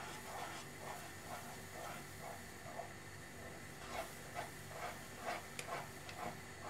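Wooden spatula stirring semolina into boiling water in a pan for upma. It makes soft, even swishing strokes about two to three a second over a faint hiss of the simmering water.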